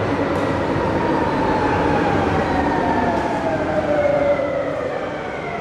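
Renfe Cercanías Civia electric multiple unit (class 464) pulling into the station platform, its motors giving a whine that falls in pitch as the train slows, over the rumble of the wheels on the rails. It is loudest about four seconds in as the cars pass close by.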